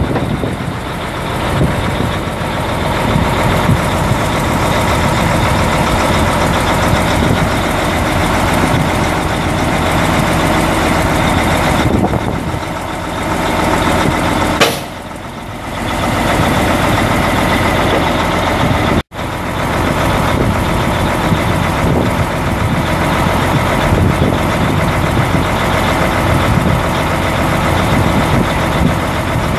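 Mack E6 11.0-litre inline-six turbo diesel of a 1989 Mack RW713 crane truck idling steadily, dipping briefly about halfway through.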